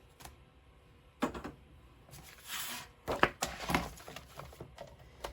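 Crafting handling sounds as paper and a metal cutting die are moved about on a table: a few light knocks and a brief rustle of paper.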